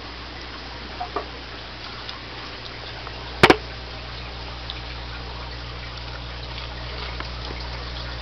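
Aquarium filter running: water trickling over a steady low hum, with a few faint ticks. A sharp double knock sounds about three and a half seconds in.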